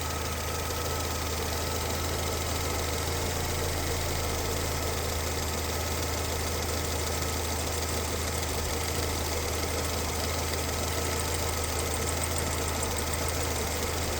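Engine running steadily at constant speed, making the strange noise that its owner is asking about.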